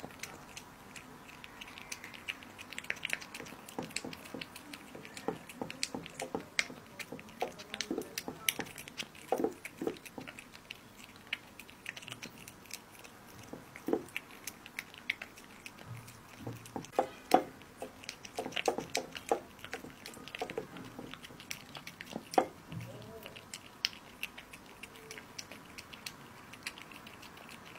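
A cat chewing and biting raw minced meat, a run of irregular small clicks with a few louder snaps in the second half.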